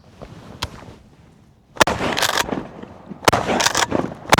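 Mossberg Maverick 88 pump-action shotgun fired at passing ducks, three loud shots about a second and a half apart, each with a rolling tail.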